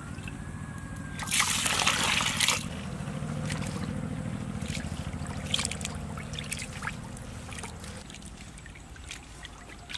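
Water sloshing and trickling in a metal basin as a heap of small shrimp is rinsed and stirred by hand. A louder burst of splashing comes about a second and a half in and lasts about a second.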